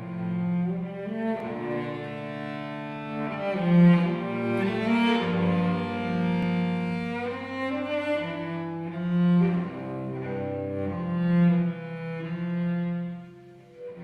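Live cello playing a slow melody of long bowed notes, with grand piano accompaniment beneath; the music eases off briefly near the end before the next phrase.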